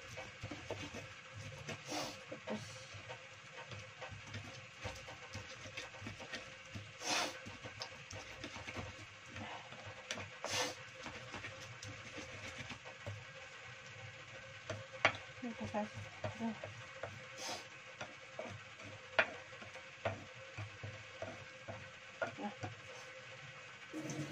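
Stone pestle grinding and scraping wet chili spice paste in a shallow cobek mortar: continuous irregular scraping with scattered sharp knocks of stone on stone.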